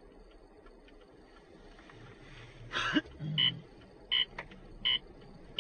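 Low steady hum inside a moving car. About three seconds in there is a brief noisy burst, then short electronic beeps repeat about every three-quarters of a second.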